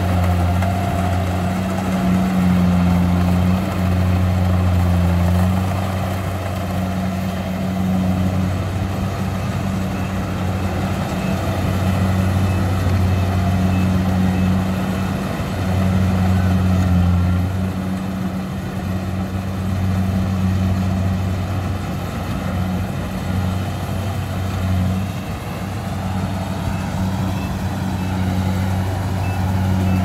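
Rice combine harvester's engine running steadily as the machine works across the field, a deep, even hum that swells and eases slightly now and then.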